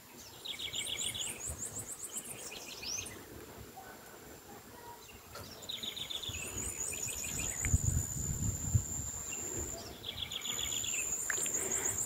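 A songbird singing short phrases of quick repeated high notes, several times over, with a thin steady high-pitched hum underneath.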